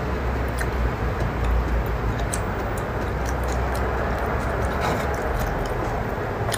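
Light, scattered clicks and taps of wooden chopsticks against a metal spoon and a wooden board as raw fish slices are picked up, over a steady background hiss and low hum.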